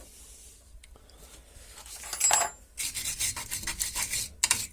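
A sharp metallic clink about two seconds in, then rapid rough scraping and rubbing strokes of metal tools and parts while a new anti-roll bar link is fitted to a car's suspension.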